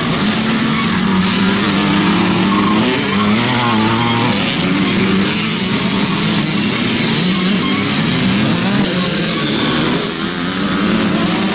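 Several youth motocross bikes' small two-stroke engines revving up and down as they race past, their pitches rising and falling and overlapping.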